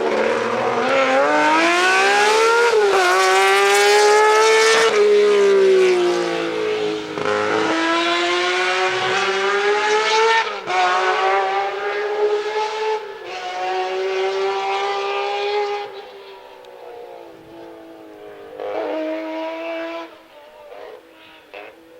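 Rally car engine at full throttle, climbing in pitch and dropping sharply with each upshift several times in a row as the car accelerates past and away. It fades after about 16 s, with one more short burst of revs near the end.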